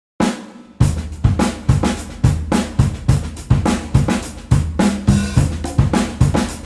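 A recorded track starts out of silence with a cymbal crash. From about a second in, a steady drum-kit groove of kick drum, snare and hi-hat plays, with bass notes underneath.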